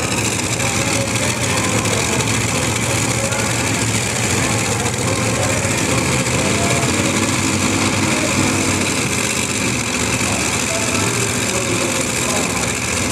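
Multi-engine modified pulling tractor running steadily while stationary, a loud continuous engine drone, with a voice faint in the background.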